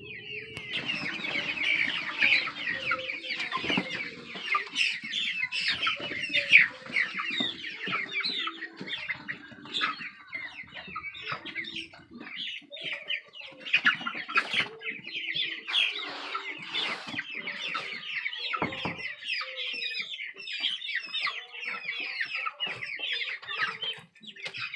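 A flock of chickens calling all together: a dense, continuous chatter of many short high peeps, with lower clucks among them.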